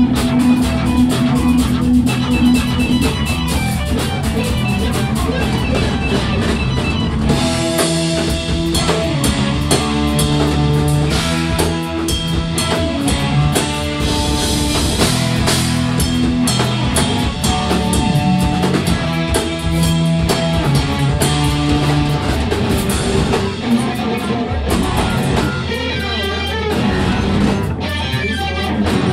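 Live rock band playing an instrumental passage: electric guitars, bass guitar and drum kit. The sound grows fuller about seven seconds in.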